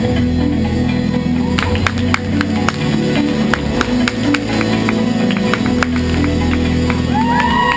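Recorded show music for a winter guard routine played over a gym's loudspeakers, steady with a strong bass line, with a scatter of sharp clicks and taps from about a second and a half in. Near the end an audience member lets out a rising whoop.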